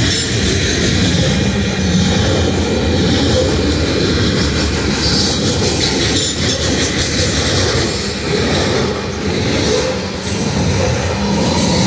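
Steel coal gondolas of a long Union Pacific coal train rolling past at a grade crossing: a loud, steady rumble of car wheels running over the rails.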